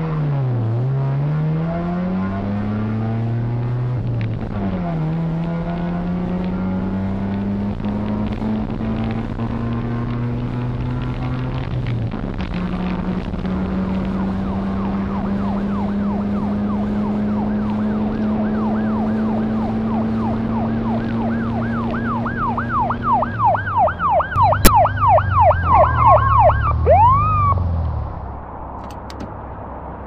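A car engine revs and then runs steadily at speed. Near the end a police siren takes over, yelping in fast rising-and-falling sweeps, and finishes with a short falling wail.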